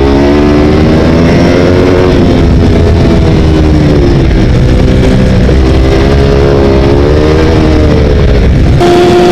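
Sports motorcycle engine heard from an onboard camera at speed on a race track, its revs climbing and dropping again and again through gear changes and corners. Near the end it cuts to a steadier engine note.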